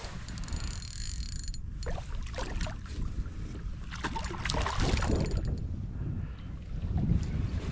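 Wind buffeting the microphone as a low rumble, with scattered knocks and rattles of fishing gear on a kayak.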